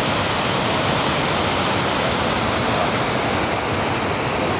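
Mountain stream rushing hard over boulders in white-water rapids: a steady, loud rush of water.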